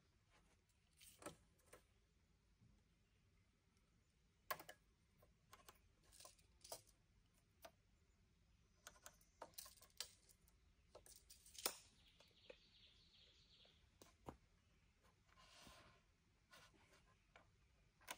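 Near silence with faint, scattered clicks and taps of hand tools against timber, from measuring a beam with a tape measure and marking it with a pencil.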